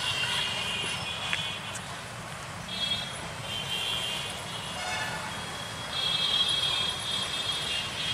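Road traffic of three-wheeled auto-rickshaws and motorbikes: engines running low and steady underneath, with short high-pitched horn beeps sounding every second or two.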